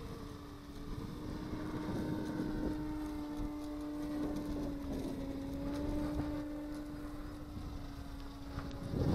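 Radio-controlled model Hafner autogyro's motor and propeller running steadily in flight, a constant hum with a slight waver in pitch, under gusts of wind on the microphone; a loud wind gust hits at the very end.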